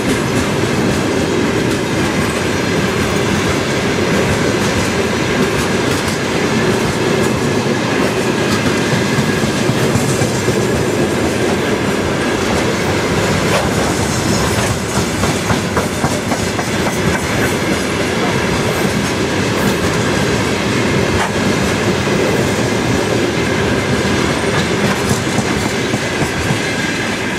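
Freight train of open gondola wagons rolling past close by, the wheels clattering over the rail joints in a steady, loud rumble; the last wagon passes near the end.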